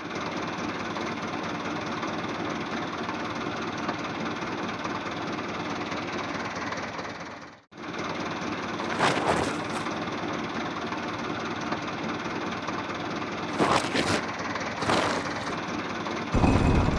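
Steady engine running noise that drops out briefly about eight seconds in and then resumes. A few short louder bursts come later, and a loud low rumble sets in near the end.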